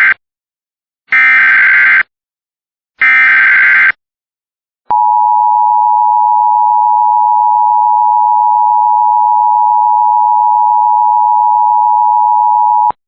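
Emergency Alert System signal: the end of one SAME header data burst and then two more harsh, buzzing digital bursts of about a second each. After a short gap comes the steady EAS attention tone, which lasts about eight seconds and cuts off abruptly, the cue that the spoken alert message follows.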